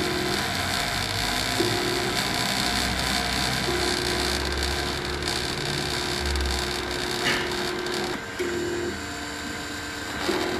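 Homemade CNC milling machine running: a steady whirring hiss from the rotary-tool spindle, under a mid-pitched whine from the stepper-driven axes that starts and stops several times as the machine moves.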